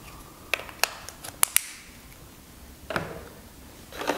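Sharp plastic clicks and taps, about five in quick succession in the first second and a half, from handling a handheld radio and its battery pack, then a dull knock and rustling as hands reach into a cardboard box.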